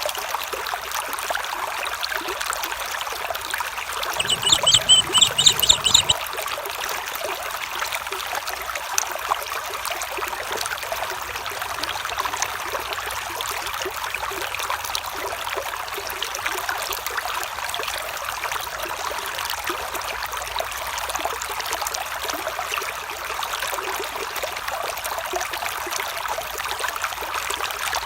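A stream flowing with a steady rushing trickle. About four seconds in, a bird calls a quick run of high repeated notes for about two seconds, the loudest sound here.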